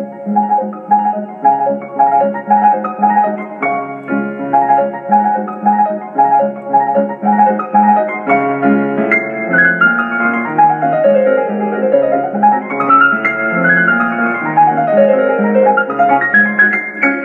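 Instrumental piano music in a classical style: an even, bouncing melody over a bass line, with quick scale runs sweeping down, then up, then down again in the second half.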